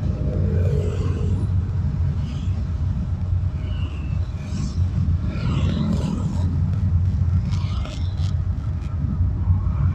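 Car driving in city traffic, heard from inside the car: a steady low rumble of engine and road, with sounds of passing traffic coming and going over it.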